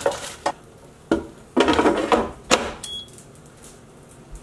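Tongs clicking against the fries and nonstick basket, then the basket of an Instant Vortex Mini air fryer being slid back in and latching with a sharp click, followed by a short high beep as the fryer resumes cooking; its fan then runs quietly.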